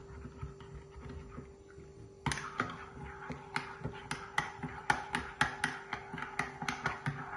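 Metal spoon stirring a watery spice and tomato-paste mix in a ceramic mug, clinking against the inside of the mug to dissolve the paste. The stirring is soft at first; about two seconds in it turns to quick, uneven clinks, about three or four a second.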